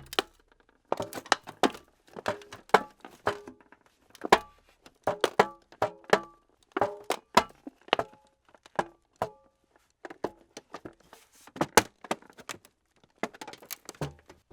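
Scrap metal and old electronics (tin, steel, aluminium pieces) being crushed: an irregular run of sharp crunches and clanks, many with a short metallic ring, with brief pauses between clusters.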